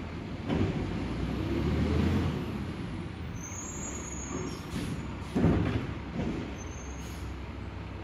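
Labrie Automizer garbage truck's engine running and revving up for a couple of seconds near the start, with a sudden loud clunk about five and a half seconds in.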